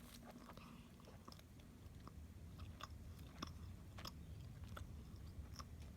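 Faint chewing of a mouthful of corn dog dipped in peanut butter: soft, irregular clicks from the mouth.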